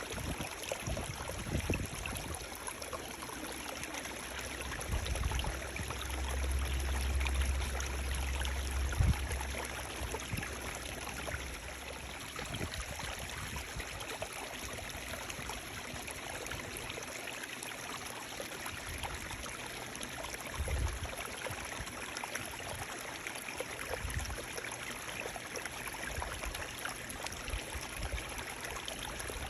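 Running water flowing and splashing steadily. A deep low rumble swells for several seconds a few seconds in, and a few brief low thumps come later.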